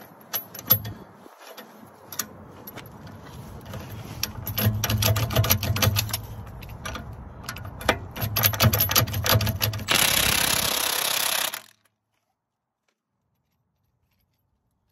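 Impact wrench hammering on a rusted front axle nut in two bursts, with socket and tool clicks before them. It does not break the nut free: it only comes slightly loose. A loud steady rushing noise lasts nearly two seconds near the end, and then the sound cuts off abruptly.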